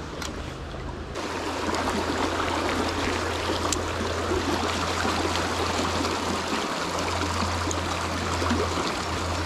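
Small river's current running over riffles: a steady, even rush of water that gets louder about a second in.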